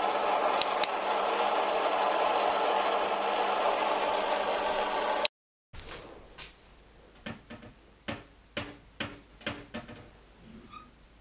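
A loud, steady hiss of electronic static with faint steady tones in it cuts off abruptly with a click about five seconds in. After that it is much quieter, with a series of light, separate knocks and creaks.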